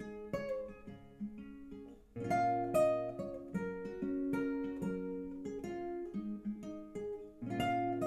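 Nylon-string classical guitar with a capo, played alone in an instrumental passage of plucked notes and chords, with heavier chords struck about two seconds in and again near the end.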